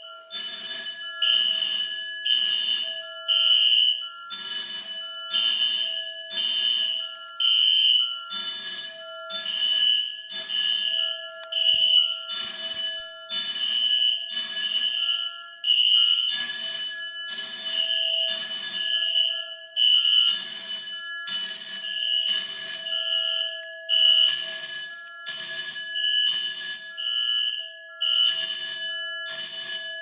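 Fire alarm system in full alarm, set off by the attic heat detector being heated: a vibrating fire alarm bell (Pyrotronics BDC-624) rings in bursts, repeating in code-3 groups about every four seconds. Under it, electronic horns and sounders keep up steady and pulsing tones.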